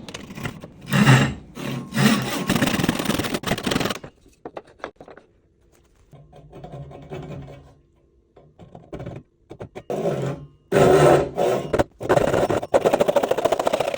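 Hand tool scraping along wood in long noisy strokes: one short stroke, then a longer bout of about two seconds, a quieter stretch of small scrapes and knocks, and two more long bouts near the end.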